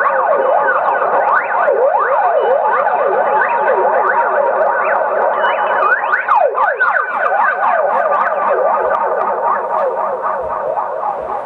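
Experimental electronic sound: many overlapping tones sliding up and down in pitch, dense and continuous, easing off slightly near the end.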